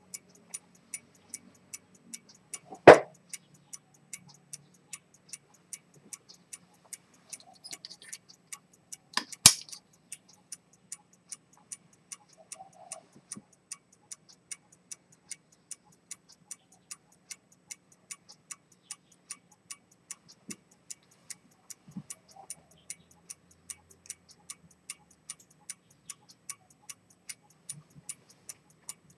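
Dent London pocket watch with a pivoted-detent chronometer escapement ticking steadily, about two and a half crisp ticks a second. Two louder sharp knocks stand out, about three seconds in and about nine and a half seconds in.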